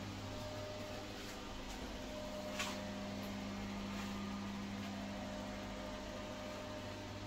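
Steady low electrical hum, like a small fan or motor, with one faint click about two and a half seconds in.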